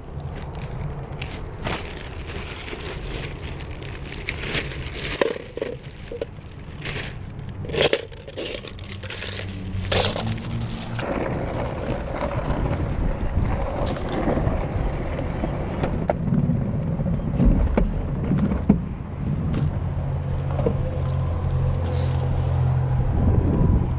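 Clattering and crunching handling noises for the first ten seconds or so, then a car running with a steady low engine and road hum.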